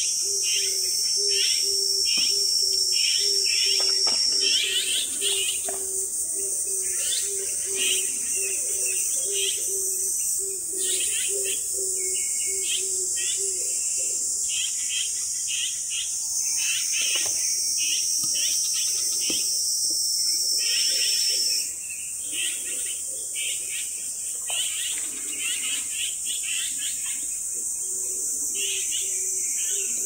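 A steady high-pitched insect chorus, with small birds chirping over it many times. A lower pulsing note runs under both, stops about halfway through and comes back near the end.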